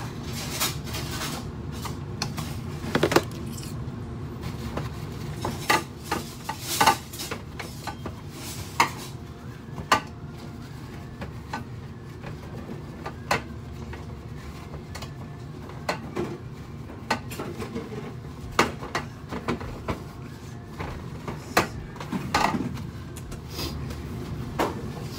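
Dishes, metal pans and utensils clattering and knocking as they are handled, in scattered irregular strikes over a steady low hum.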